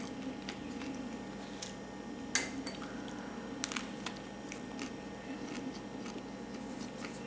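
Table knife spreading butter on a slice of crusty bread: faint scrapes and ticks of metal on crust, with a sharper clink about two and a half seconds in.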